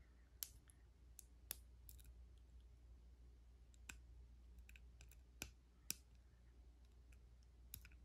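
Faint, irregular small metallic clicks of a lock pick and tension tool working the key-override keyway of a Master combination padlock, about a dozen spread over the stretch, loudest about half a second, one and a half, five and a half and six seconds in.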